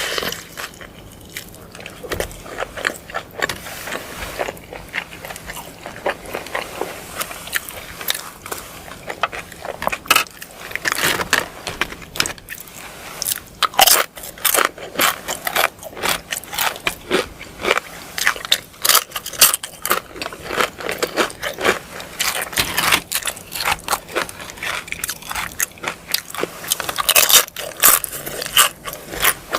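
Close-miked ASMR eating of crunchy food: a fast, irregular run of sharp bites and crunches as it is chewed.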